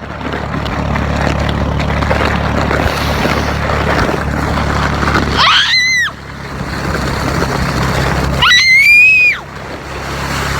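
Four-wheeler engine running with a steady rushing noise, broken by two long high-pitched screams, one about halfway through and one near the end.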